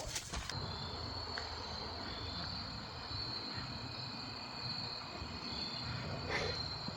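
Steady high-pitched insect chirring, typical of crickets, with one brief faint noise near the end.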